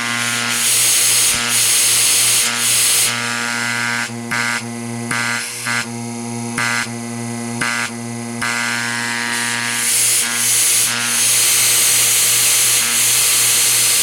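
GAST 2067 rotary-vane compressor/vacuum pump driven by a Baldor 1.5 hp electric motor, running with a steady electric hum. A high air hiss from the pump's outlet comes and goes several times, weaker through the middle stretch.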